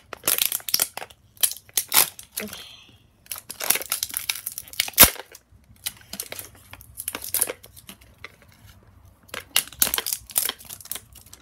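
Plastic wrapping from a LOL Surprise doll ball being crinkled and torn open by hand, in bursts of crackling with short pauses between them, and one sharp snap about five seconds in.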